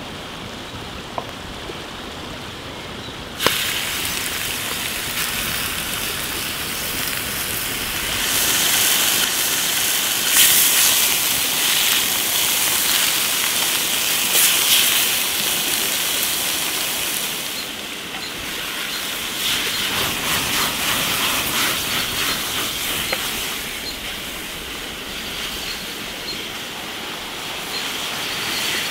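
Raw beef chunks going into hot oil in a skillet over a wood fire: a sudden hit about three and a half seconds in, then a loud, steady sizzle of the meat frying, with scraping as it is stirred with a wooden spatula.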